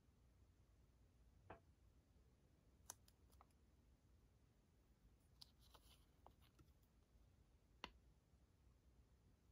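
Near silence with a handful of faint, scattered small clicks and taps from handling a nail-art tool over paper, the sharpest near the end.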